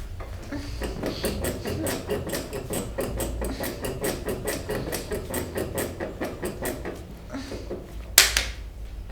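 Rapid rhythmic percussion strikes on the body, about five or six a second, typical of hand tapotement during a massage, followed about eight seconds in by one loud, sharp slap or crack.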